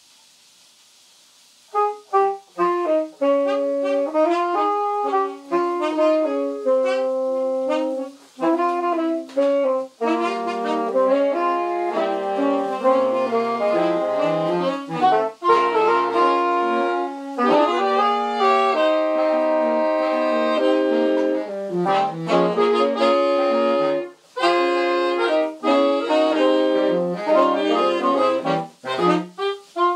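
A quartet of wind instruments playing a piece in several parts together. It comes in about two seconds in after a moment of faint hiss, with brief breaks between phrases.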